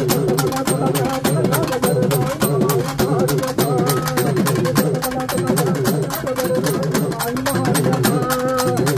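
Tamil temple-festival drum ensemble playing live: fast, even drum strokes, with a wavering melodic tone that bends up and down above the beat.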